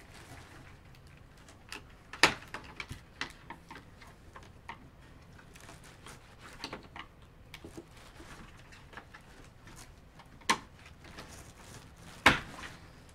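Scattered clicks and knocks of hands and a flat-blade screwdriver working the plastic clips and parts on the back of a truck grille, with three much louder sharp clicks about two seconds in, near ten seconds and near the end.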